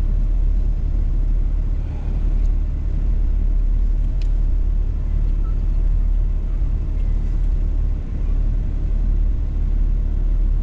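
Steady low rumble of a car cruising at highway speed, heard inside the cabin: engine and tyre road noise.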